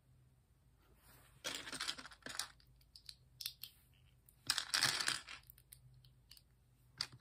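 Plastic LEGO bricks being handled and pressed together: short clicks and two spells of light plastic clattering, about a second and a half in and, louder, about four and a half seconds in.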